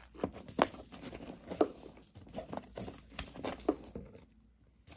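Paper seed packets being handled and sorted by hand: light rustling with a few irregular sharp taps and clicks.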